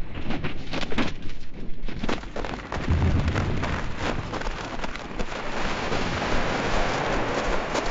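Avalanche sound effect: scattered sharp cracks of snow breaking loose, a deep rumble about three seconds in, then a dense rushing noise of snow pouring down the slope that thickens toward the end.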